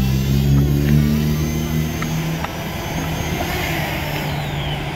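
A motor running with a steady low hum that fades about two seconds in, and a high whine that falls in pitch near the end.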